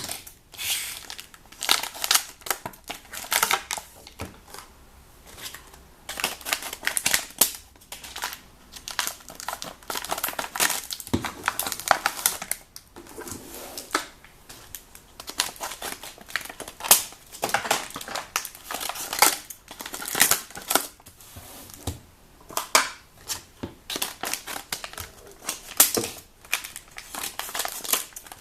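Plastic blister packs of trading cards being pulled and torn open, with irregular crinkling and crackling of the stiff plastic.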